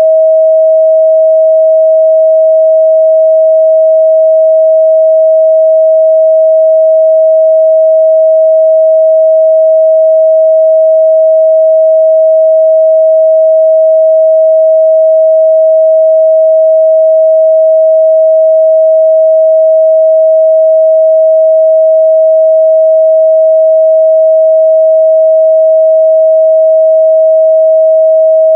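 A steady, loud 638 Hz sine-wave test tone: one pure unwavering pitch with no other sound.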